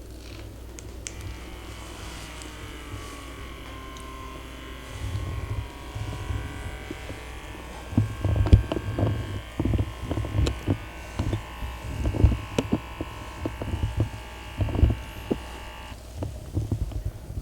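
A small electric motor buzzing, switched on about a second in and cut off abruptly near the end, with irregular low thumps from about five seconds on.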